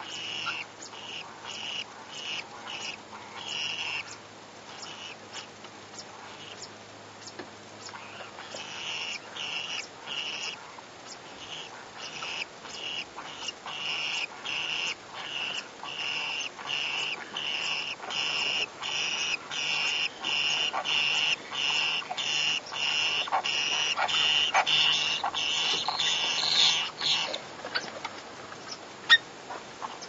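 Conures mating, giving a long rhythmic string of short mating calls, about two to three a second. The calls grow louder toward the end, then stop abruptly, followed by a single sharp click.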